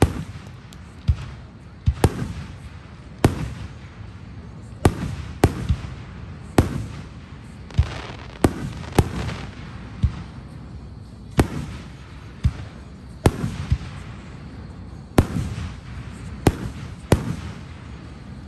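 Aerial fireworks shells bursting in a steady series of sharp booms, about one a second, each trailing off in a low rumble and crackle.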